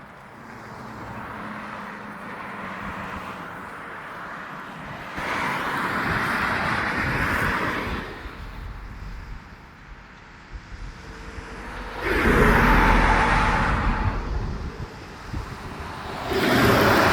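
Road traffic passing by: three swells of tyre and engine noise, starting about 5, 12 and 16.5 seconds in, with the last two the loudest. No horn sounds.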